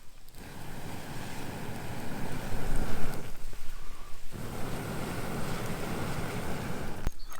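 Wind buffeting the microphone in two long gusts, a rough low rushing that swells loudest about three seconds in and cuts off abruptly near the end.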